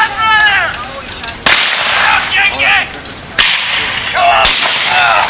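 Three sharp gunshot cracks, about a second and a half in, near the middle and past four seconds, from reenactors firing blanks during a mounted saber skirmish. Men shout between the shots.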